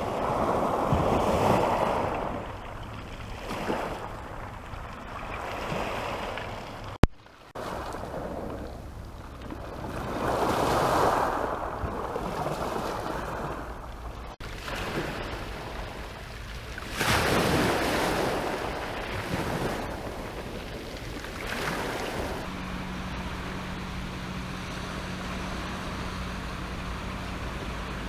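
Sea waves breaking on the shore, surging up and washing back in repeated swells, with wind buffeting the microphone. A sharp click sounds about seven seconds in, and a low steady hum joins near the end.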